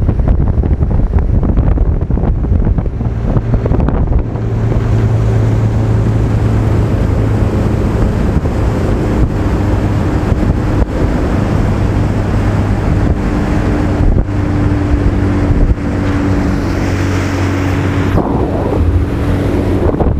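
Boat's outboard motor running steadily under way, with a low hum, and wind buffeting the microphone.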